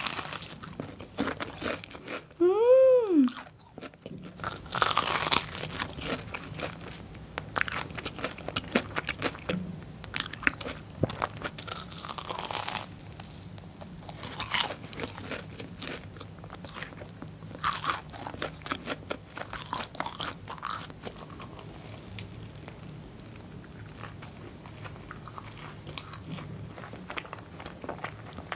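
Close-miked crunchy bites into a Korean potato corn dog coated in diced fried potato, then chewing, with loud crunches every few seconds that grow fewer and softer near the end. About three seconds in, a short tone rises and falls in pitch.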